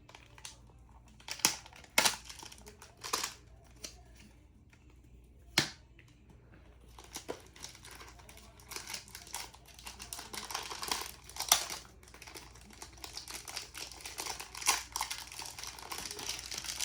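A toy's packaging being opened by hand: a few sharp clicks and snaps in the first several seconds, then steady crinkling and rustling of the wrapping.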